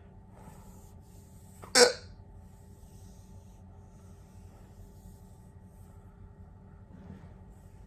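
A single sharp hiccup about two seconds in, one of a long bout of hiccups.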